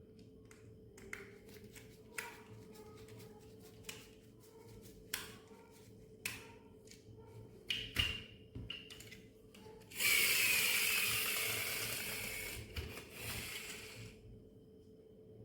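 Small plastic toy parts clicking and tapping as they are handled, then about ten seconds in a small motor whirs loudly with a falling whine and dies away over about four seconds.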